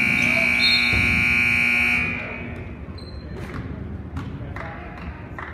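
Gym scoreboard buzzer sounding one long, loud, steady tone that cuts off about two seconds in. After it, a basketball is dribbled on the hardwood floor, a few uneven bounces.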